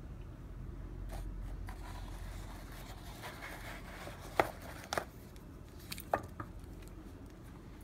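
Handling noise as a watch with a metal bracelet is lifted out of its presentation box and the box cushion is taken out: a few sharp clicks and clinks about halfway through, then two more about a second and a half later, over a faint low hum.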